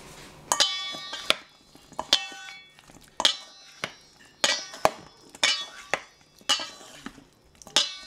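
Salad servers tossing chopped tomato salad in a stainless steel mixing bowl: irregular clinks about once a second, each leaving the bowl ringing briefly.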